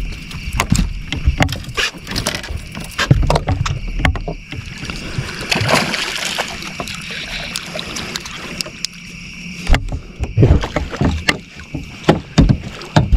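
Irregular knocks, clicks and low thumps of handling on a fishing boat as a hooked bass is fought on rod and reel, over a steady high chirring of crickets.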